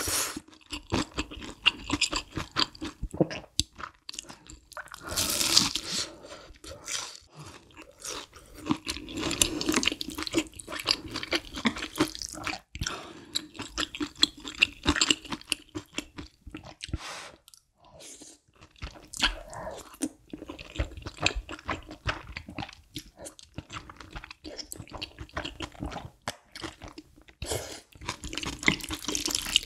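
Close-miked eating sounds: crunchy bites into a deep-fried breaded cheese pork cutlet and wet chewing, with many irregular crunches. Later come mouthfuls of thick udon noodles in creamy sauce.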